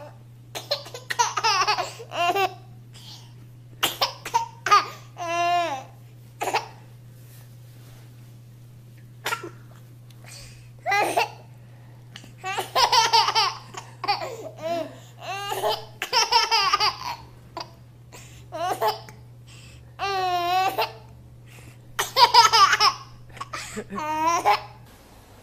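A baby laughing in repeated bursts of high giggles and squeals, over a steady low hum.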